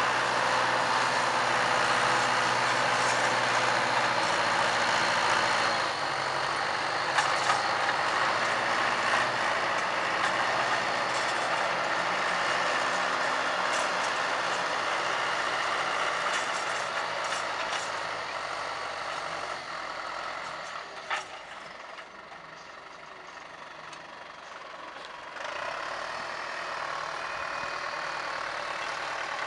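John Deere farm tractor's diesel engine running steadily under load while pulling a disc plough, growing quieter as it draws away and a little louder again near the end. A single sharp knock comes about two-thirds of the way through.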